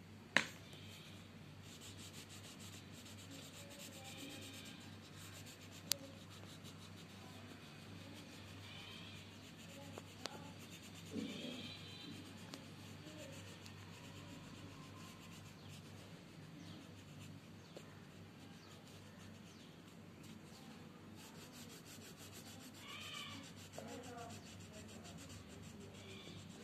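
Colouring pencil rubbing and scratching on paper as a drawing is shaded in, with a few sharp clicks. Several faint high calls sound in the background, the one near the end falling in pitch.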